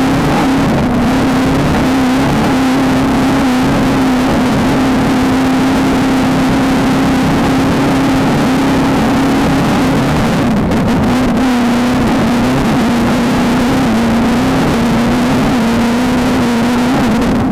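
A VW Beetle-based desert race car's engine running at steady high revs, its pitch wavering slightly with the throttle, over a constant rush of wind and road noise.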